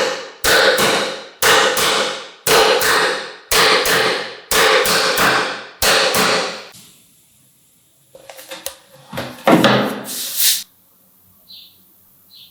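Hand hammer strikes at about one a second, each hit ringing out and fading before the next, stopping about seven seconds in. A few lighter knocks and a clatter of a tool being handled follow.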